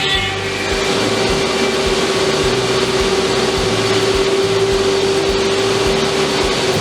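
CNC router spindle running with a steady whine over a dense hiss as it mills MDF.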